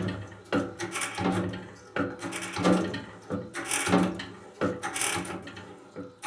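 Hand-lever pressure test pump being worked stroke after stroke, a run of clunks coming roughly every half second to second, as it forces water into a water line and builds up pressure for a leak test.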